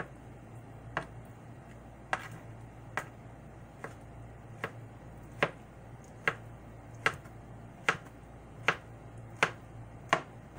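Kitchen knife dicing ripe mango on a cutting board: a sharp knock of the blade on the board a little more than once a second, the strokes growing louder in the second half.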